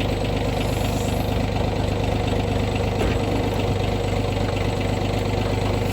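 Diesel-type engine of a loader idling steadily, a constant low hum while the bucket holds the body.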